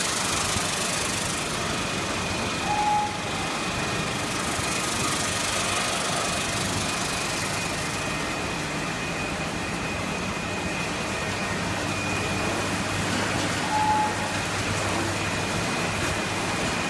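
Snack pellet frying line machinery running with a steady noise and a constant thin high whine, with a short higher-pitched squeak or beep about three seconds in and again near the end.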